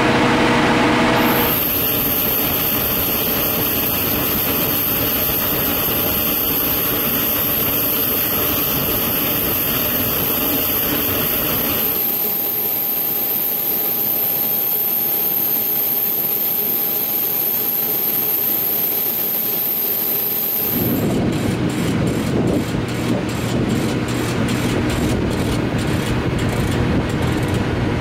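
Steady jet-turbine noise of aircraft on the ramp: a loud rush with a high-pitched whine, as from a running APU. The sound shifts abruptly a few times where the shots change.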